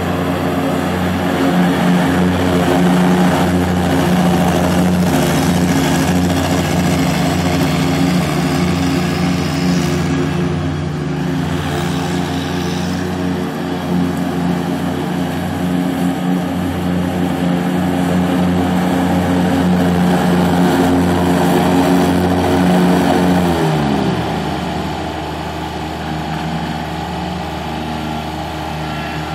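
Kubota ZD331 zero-turn mower's 1.3 L diesel engine running steadily at speed. About three quarters of the way through, the engine speed drops away, its pitch sliding down, and it runs on more quietly.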